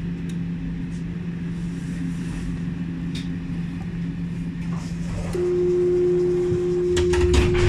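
Stopped tram with a steady low electrical hum, then a steady warning tone sounds about five seconds in and holds, typical of a tram's door-closing signal. A few sharp clicks and a low thump come near the end.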